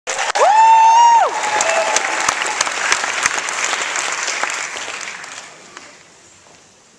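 Audience applauding, with a loud high-pitched cheer about half a second in; the clapping fades away over the next few seconds.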